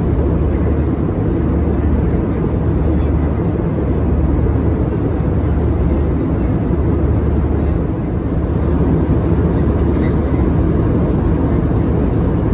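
Steady cabin noise of an Airbus A320-232 in flight: a rushing drone of airflow and engines with a deep, even hum underneath.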